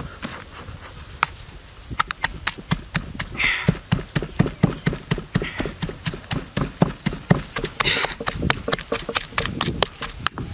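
Pestle pounding chillies and garlic in a stone mortar: a fast, even run of knocks, about three or four a second, starting about two seconds in.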